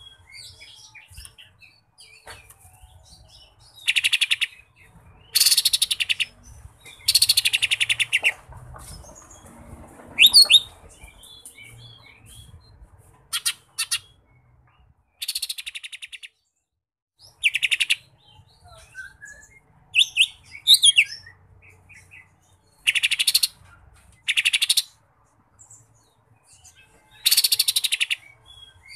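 Caged cucak ijo mini, a small green leafbird, singing: loud, high chattering trills of about a second each, repeated about seven times, with a few short slurred whistles between them.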